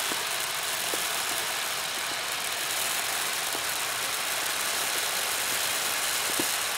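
Dry wheat grain pouring in a steady stream from a paper sack into a plastic tote: a continuous even hiss with a few faint ticks.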